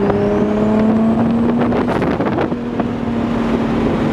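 Turbocharged 3.2-litre V6 of a 1997 Acura NSX (Garrett 3076R turbo, custom exhaust) pulling under acceleration, heard from inside the cabin. The engine note climbs for about two seconds with a thin turbo whistle rising over it. Then the note breaks with a quick burst of chatter and settles into a steady run.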